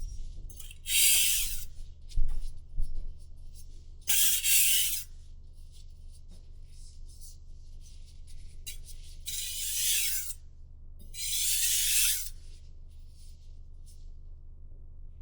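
Knife blade drawn across a whetstone in four long strokes, each a rasping hiss of about a second: two close together early, a long pause, then two more.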